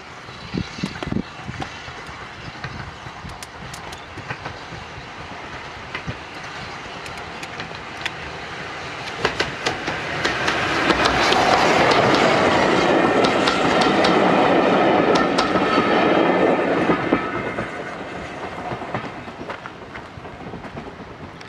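Metropolitan Railway E class 0-4-4T steam tank engine No. 1 and its coach passing close by. The wheels click over the rail joints, and the rolling noise builds to its loudest for several seconds around the middle, then fades as the train draws away.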